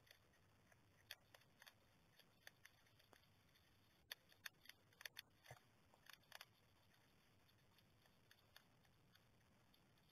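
Two hedgehogs eating from a plastic dish: faint, irregular crunching clicks of chewing, sparse at first and coming thick and fast in the middle few seconds.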